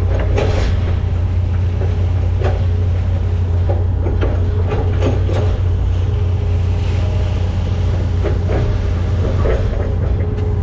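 Hitachi ZX210 excavator's diesel engine running steadily, heard from inside the cab as a deep drone, with scattered clunks and rattles from the machine as it moves.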